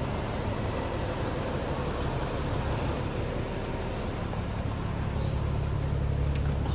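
Bus engine idling: a steady low hum, growing a little louder near the end.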